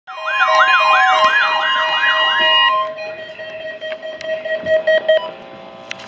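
Several weather radios sounding their alert alarms at once for a Required Weekly Test: a loud wailing siren tone rising and falling about two and a half times a second over steady and beeping tones. The siren and the higher tones cut off about two and a half seconds in, and a lower steady tone holds on until about five seconds in, with a few clicks near the end.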